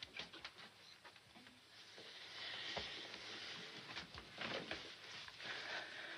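Faint rustling of clothing and soft contact sounds from people hugging and kissing, with a few light clicks.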